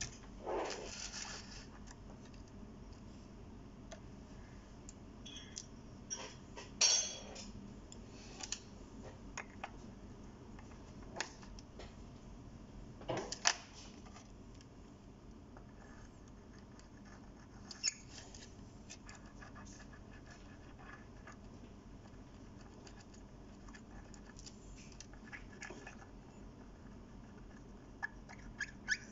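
Scattered small clicks and metallic taps from a Seiko 5's stainless steel link bracelet and case being handled on a workbench, a handful of them louder, over a low steady hum.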